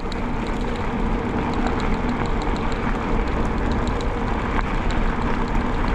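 Rigid Salsa Fargo bicycle rolling along a dirt and gravel road: a steady rumble of the tyres on the gravel, mixed with wind noise, a faint hum and light ticking.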